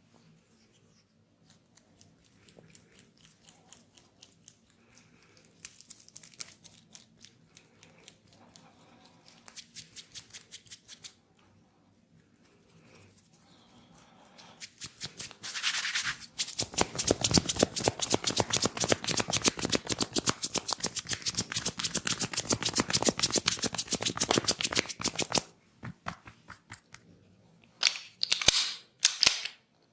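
Head massage with hands working on the scalp and long hair: faint, soft rhythmic taps at first, then about halfway a dense run of fast, sharp slaps and snaps that lasts some ten seconds, and a few louder single cracks near the end.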